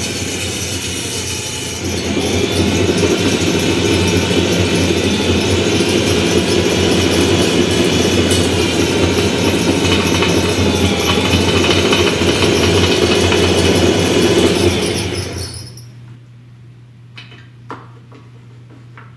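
Homemade toroidal coil winder running: a small motor fed from a battery charger turns the large metal winding ring through a polyurethane O-band belt, giving a loud, rough running noise, which the builder puts down to loose objects. It gets louder about two seconds in, then winds down and stops about three seconds before the end, leaving a low hum and a few faint knocks.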